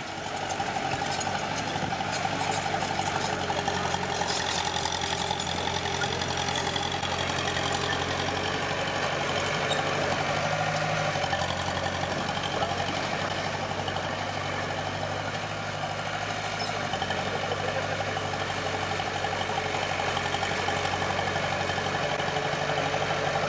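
Small bulldozer's diesel engine running steadily, with a higher mechanical whine over the engine note.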